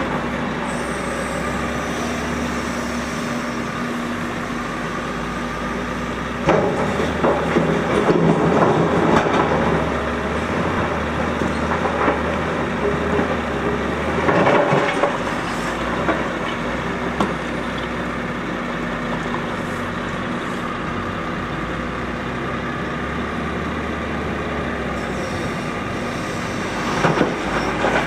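Diesel engines of a Volvo L180F wheel loader and a Volvo A40D articulated dump truck running steadily. Bursts of rock crashing and clattering come a few times, loudest near the end as the loader's bucket tips stone into the dumper's body.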